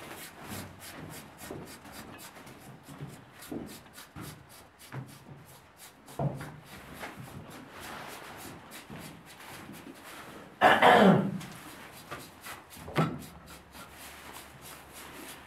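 Razor scraping and rubbing over the wet hair of a cow's flank in quick repeated strokes as the flank is shaved for a caesarean. A short, loud, voice-like call stands out about eleven seconds in.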